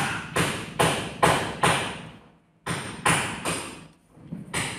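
A steady series of sharp thuds, about two to three a second, in two runs with a short pause between them.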